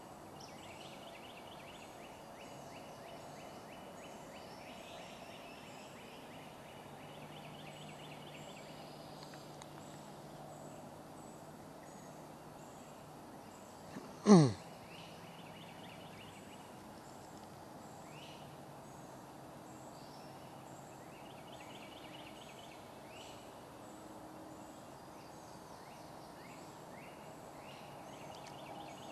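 Songbirds chirping and trilling on and off. About halfway through comes one loud, quick zip that sweeps from high pitch down to low in about half a second.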